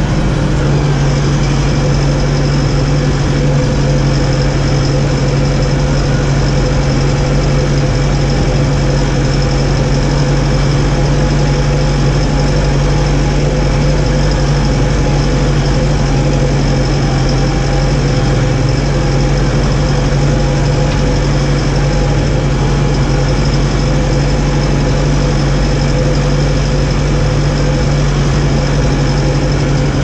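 New Holland T4.75 tractor's diesel engine running steadily, heard from inside the cab, with a steady whine over the drone.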